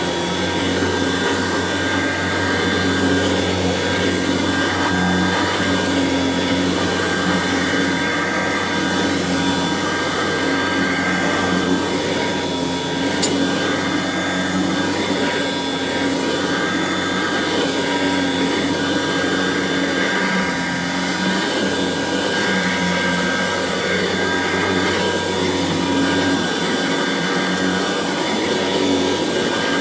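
Kirby Classic III upright vacuum cleaner running continuously while vacuuming a floor, a steady motor whine with slight rises and falls in level. A single sharp click midway through.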